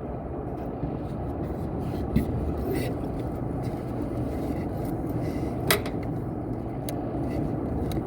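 Steady low rumble of running rooftop HVAC equipment, with two sharp clicks about two seconds in and near six seconds.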